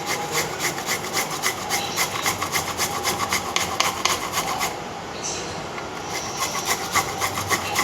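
Fresh ginger root being grated on a hand grater: quick, rhythmic rasping strokes, easing off briefly about five seconds in before picking up again.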